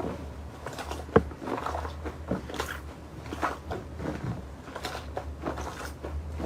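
Slime being pressed and kneaded by hand, giving a steady string of short wet clicks and pops, roughly two to three a second, with one sharper, louder pop about a second in.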